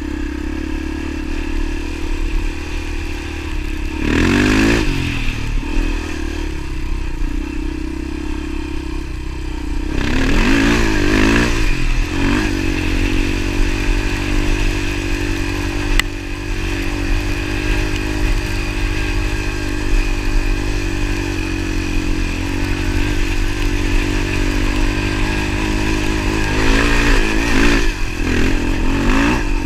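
Motorcycle engine running continuously while riding. Its pitch sweeps up and down briefly about four seconds in, again around ten to twelve seconds, and near the end.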